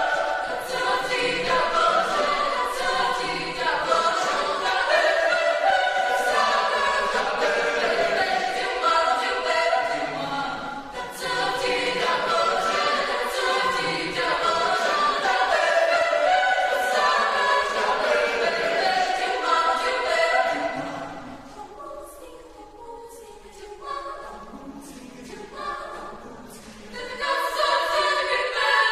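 Mixed chamber choir of women's and men's voices singing a cappella in full chords. A little past two-thirds through it drops to a soft, sparse passage for several seconds, then comes back in at full strength near the end.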